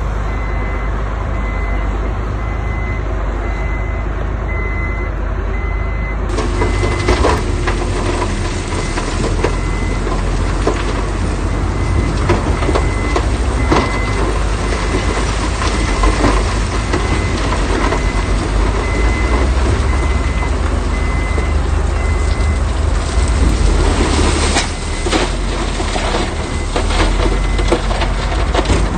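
Heavy diesel construction machinery running with a low engine rumble while a reversing alarm beeps steadily. From about seven seconds in, rattles and knocks join the engine, louder again near the end.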